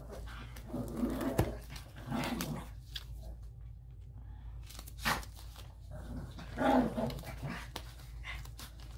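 Two dogs playing, letting out short barks about three times, with a couple of sharp knocks in between.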